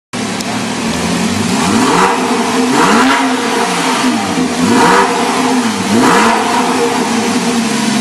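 2012 Porsche 911 Carrera S's 3.8-litre flat-six, revved in four short throttle blips with the car standing still, then settling to a steady idle near the end.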